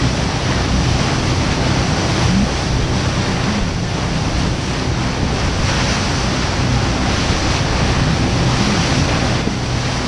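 Wind rushing over the microphone and water splashing from a small boat under way, a steady, loud noise with a low, even hum underneath.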